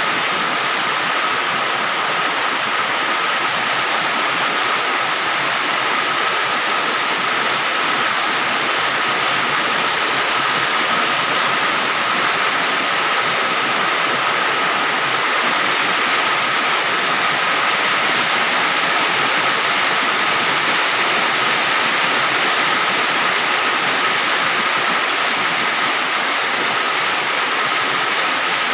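Rain falling steadily on a galvalume metal roof, an even, dense hiss with no let-up.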